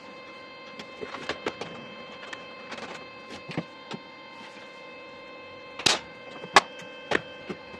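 Scattered small metallic clicks and knocks of short-shifter hardware (washers, nut, bolts) being handled and fitted by hand, a few sharper knocks about six to seven seconds in, over a steady humming tone.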